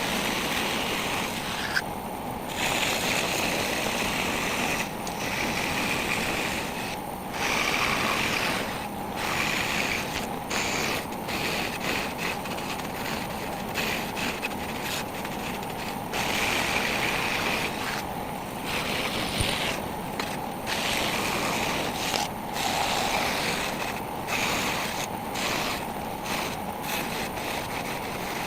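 Wood being cut: a steady, noisy cutting sound whose higher part breaks off briefly many times at uneven intervals.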